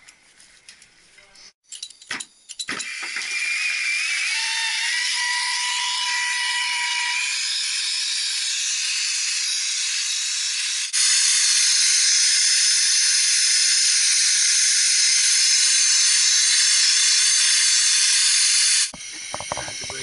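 A brazing torch flame hissing steadily as it heats the copper suction-line joint on a heat-pump compressor. A few sharp clicks come just before the hiss starts, and a wavering whistle sits over it for a few seconds after it starts. The hiss grows louder about halfway through and stops abruptly about a second before the end.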